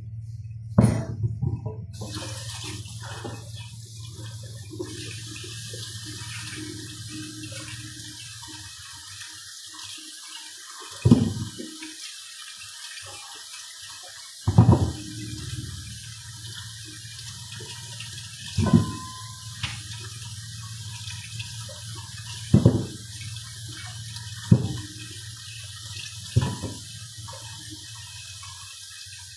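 Water running steadily from a kitchen tap into a sink, with a short knock every few seconds, about eight in all, louder than the water.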